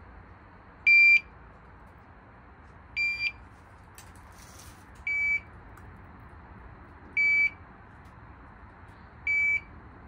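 TOPTES CT-580 handheld carbon monoxide detector alarming: a short high-pitched beep about every two seconds, five in all. It beeps because its CO reading is above 45, in the caution range near the smoldering fire.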